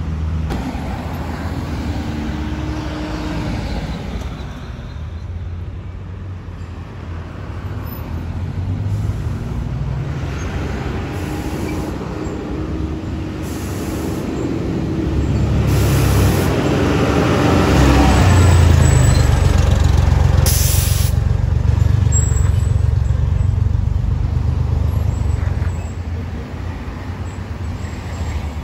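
Heavy dump truck's diesel engine rumbling as it passes with car traffic, loudest about two-thirds of the way through. A few short hisses of air brakes.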